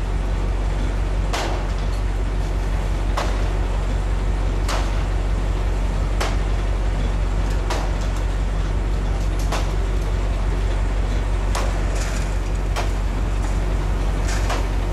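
Fire engine's motor running steadily to drive its pump, with sharp knocks and cracks about every second and a half as firefighters break apart the burnt roof.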